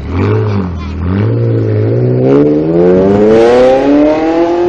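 Ferrari 360 Modena's V8 accelerating hard. A quick rev blip comes first, then from about a second in the engine note climbs steadily in pitch and gets louder in one long pull.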